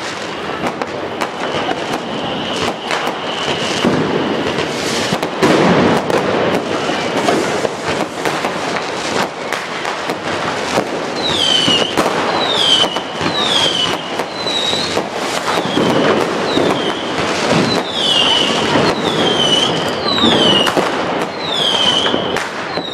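New Year's Eve fireworks all around: firecrackers and rockets banging and crackling without a break. From about halfway, a high whistle falling in pitch repeats roughly once a second.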